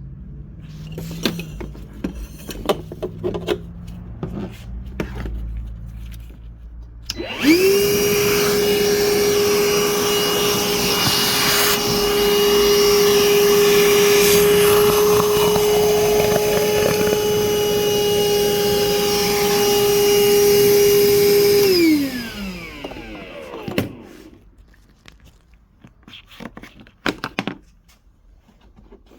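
Milwaukee M18 cordless vacuum switched on about seven seconds in, its motor quickly spinning up to a steady whine. It runs for about fifteen seconds, then is switched off and winds down over a couple of seconds. Scattered clicks and knocks of handling come before and after.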